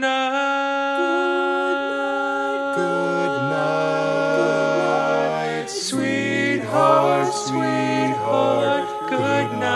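Four-part male barbershop quartet (tenor, lead, baritone and bass) singing a cappella, holding long close-harmony chords that change every second or two. A lower bass note comes in about six seconds in.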